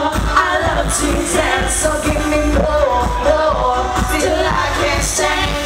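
A woman singing a pop song into a microphone over loud amplified backing music with a heavy bass and a steady beat.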